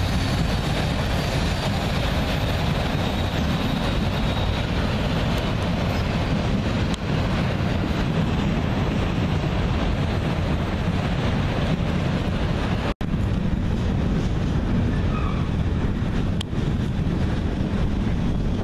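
CSX freight train rolling past at close range, a locomotive and then a string of enclosed autorack cars, with a steady, even rumble of wheels on rail. The sound drops out for an instant about two-thirds of the way through.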